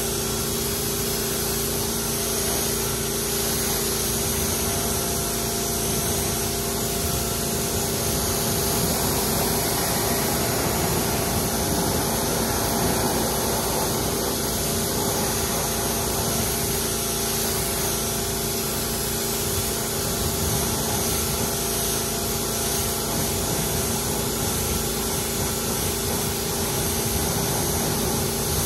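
Pressure washer running steadily, its water jet hissing and spattering against a tire and alloy wheel as the cleaning chemical is rinsed off, over the steady hum of the washer's pump motor.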